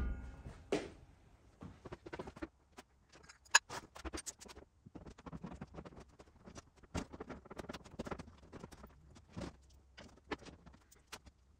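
Scattered light clicks, taps and scraping of things being handled, irregular and fairly quiet.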